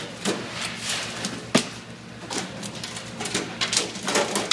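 Wet haddock sliding and slapping onto a stainless steel sorting table, a quick irregular run of knocks and slaps with the loudest about a second and a half in, over a steady hiss of spraying water.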